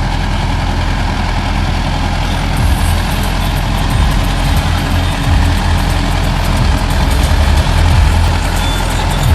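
Heavy vehicle engine running steadily with a continuous low rumble.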